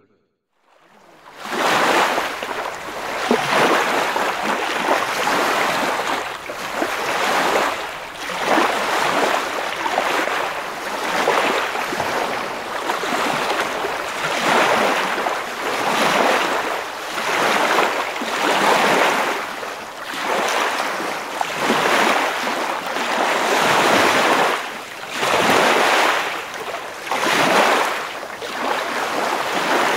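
Ocean surf: waves washing in, a noisy wash that swells and falls back about every two seconds, fading in about a second in.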